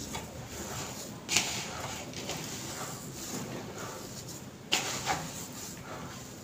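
Hand mixing and squeezing a crumbly mix of sabudana flour, grated raw potato and crushed peanuts in a plastic bowl: a steady rustle of the moist mixture, with a few sharper knocks about a second in and near five seconds.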